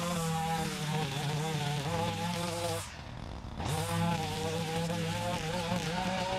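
Gas string trimmer running at high revs, its pitch wavering as the line cuts into tall weeds and brush. About three seconds in the throttle is let off for under a second, and the engine then revs back up.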